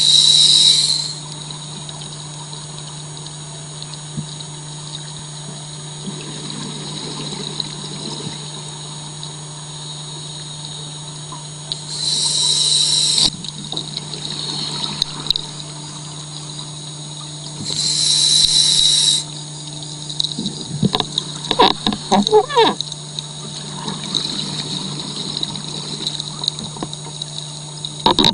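Underwater sound of a scuba diver breathing: three loud bursts of exhaled bubbles from the regulator, near the start and about 12 and 18 seconds in, over a steady low hum. A little after 20 seconds in, a short spell of rapid crackling bubbles.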